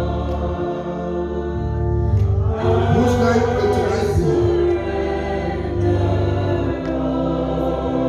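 A group of voices singing a gospel hymn in long held notes over a steady musical accompaniment.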